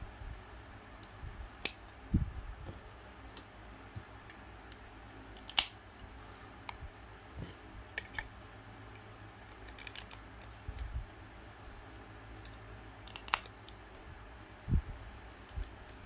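Scattered sharp small clicks and taps of snap-fit plastic model kit parts being handled, with two dull knocks on the work surface, over a steady low hum.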